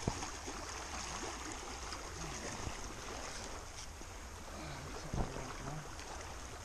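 Small waves lapping and washing over the stones at the water's edge, with wind rumbling on the microphone. Two short knocks, one at the start and one about five seconds in.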